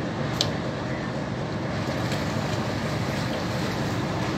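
Steady noise of a fishing boat's engine and deck machinery running, with one brief sharp click about half a second in.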